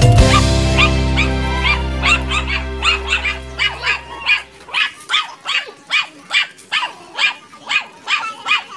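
Puppies yipping over and over, short high calls about two or three a second, while background music fades out over the first half.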